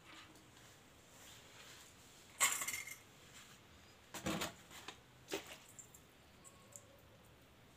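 Small metal parts and tools clinking and knocking against each other in a few short bursts while being handled, the loudest about two and a half seconds in, with more clinks around four and five seconds in.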